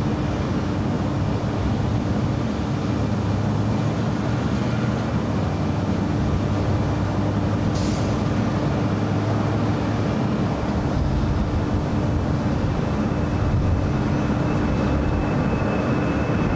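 Air Force One, a VC-25A Boeing 747, with its four turbofan engines at takeoff power as it lifts off and climbs: a steady low jet roar with a constant hum in it.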